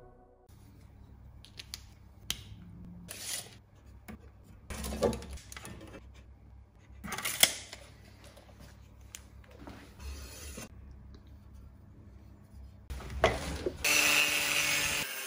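Metal tools and a thin stainless steel sheet handled on a workbench: scattered clinks, scrapes and knocks. Near the end an angle grinder cuts into the steel plate with a loud, steady grinding.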